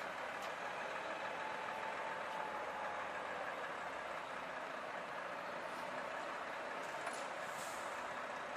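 Steady, even background noise like distant traffic or machinery, with no distinct events; a faint whine sits under it for the first few seconds.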